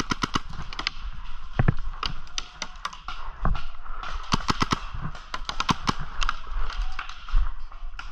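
Paintball markers firing: quick runs of several sharp shots a second near the start and again around the middle, with scattered single shots between.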